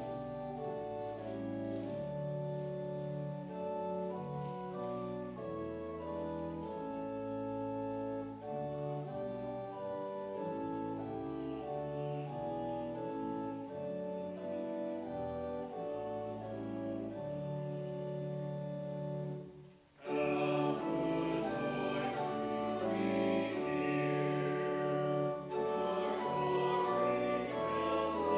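Organ playing the introduction to a hymn in held chords. About twenty seconds in it breaks off briefly, then the congregation starts singing the hymn with the organ.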